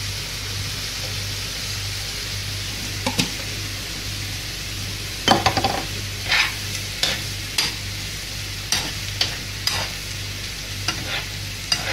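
Food sizzling steadily in a frying pan. From about five seconds in, a spoon scrapes and knocks against the pan in a string of separate strokes as sour cream is stirred into frying porcini mushrooms.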